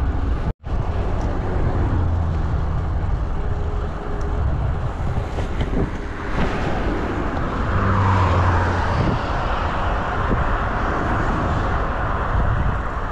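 Steady rush of wind and road noise on the camera's microphone while riding a road bike on asphalt. A motor vehicle goes by, loudest about eight seconds in.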